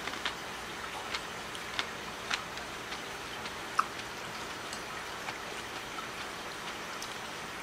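A person eating cold noodles: small wet clicks of chewing, and chopsticks ticking against a ceramic bowl, the sharpest tick a little under four seconds in. A steady hiss runs underneath.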